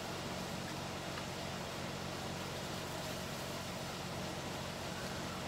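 Steady low hum with an even hiss over it: background room noise, with no distinct event.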